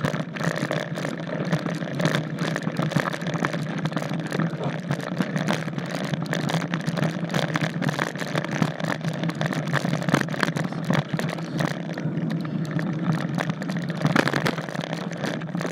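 Mountain bike rolling along a dirt singletrack: tyre noise on the dirt with many quick clicks and rattles from the bike over rough ground, under a steady low hum.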